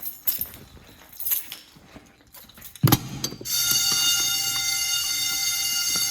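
Light clicks and handling, then a sharp clunk about three seconds in, and half a second later a fire alarm sounds steadily: a dense, loud ringing made of many high tones. It cuts off at the end.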